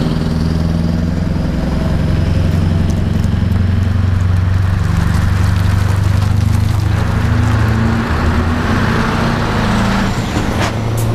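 Heavy diesel lorries, tractor units hauling low-loader trailers loaded with truck cabs, driving slowly past one after another: a steady low engine drone that shifts in pitch as each truck goes by. A hiss of tyres and trailer noise swells about two-thirds of the way through, and there is a short sharp click near the end.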